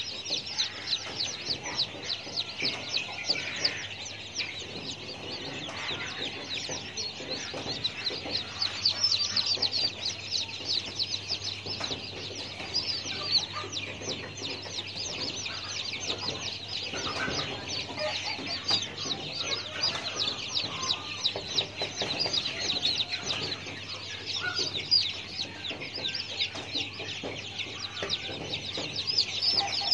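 Many birds chirping at once, a dense unbroken stream of short, high, downward-sliding chirps.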